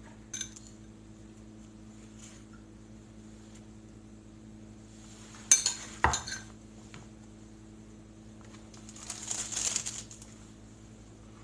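Kitchen utensils clinking against dishes: a small click, then two sharp clinks about halfway, and a scraping about a second long near the end, over a steady low hum.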